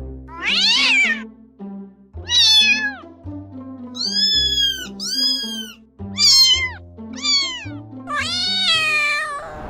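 A domestic cat meowing about seven times in a row, most meows falling in pitch, over background music.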